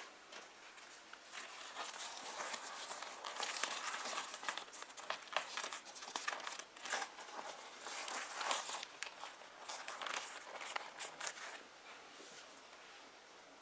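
Hands handling and folding a leather seat cover with a foam lining: irregular rustling and crinkling, busiest in the middle and dying down near the end.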